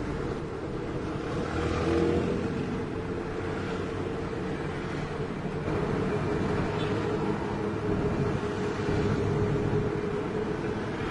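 Fuso self-loader truck's diesel engine running steadily under way, heard from inside the cab with road noise.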